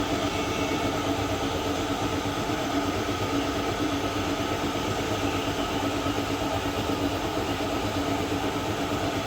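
A machine running steadily: a constant mechanical hum with several held tones, with no change in pitch or speed.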